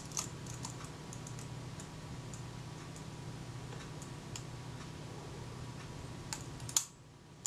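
Kodak Retina IIIc film advance lever being slowly worked through its stroke: irregular faint ticks from the advance and cocking mechanism, with a sharper click near the end as the shutter cocks just before the lever reaches the end of its stroke.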